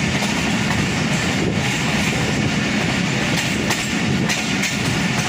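Express passenger train running through a station at speed, heard from an open coach doorway: a steady rumble and rush of wheels on rail, with a few clacks as the wheels pass over rail joints.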